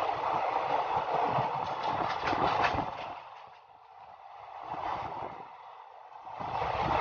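Passenger train running along the track, heard from an open coach doorway: a steady rushing noise of the moving coaches with a run of wheel clicks about two seconds in. The noise dies down for a few seconds in the middle, then rises again near the end.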